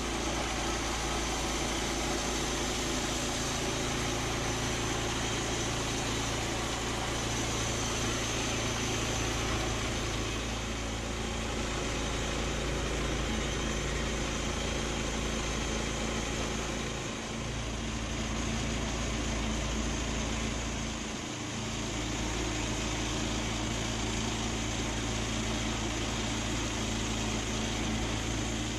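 An engine running steadily, with two brief dips in level.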